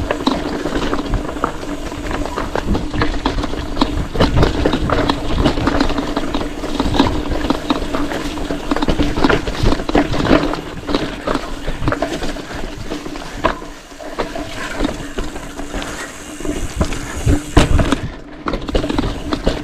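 Mountain bike riding fast over a rough dirt trail: the frame, chain and parts rattle and knock over bumps, over wind on the microphone, with a steady buzz from the coasting rear freehub.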